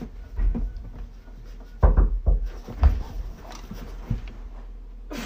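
Several dull knocks and thumps at uneven intervals over a low steady hum. The loudest come about two and three seconds in.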